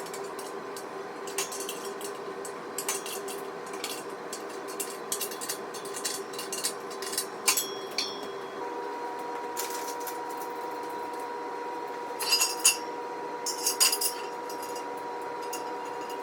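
Steel squat-rack parts and bolts being handled and fitted together: scattered light metallic clinks and knocks, with a few louder clanks in two clusters near the end, over a steady hum.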